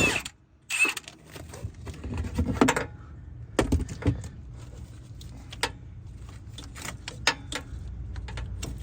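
Scattered metallic clicks and clinks of hand tools, a wrench or socket working on the A/C compressor's 13 mm ground bolt, at irregular intervals over a faint low hum.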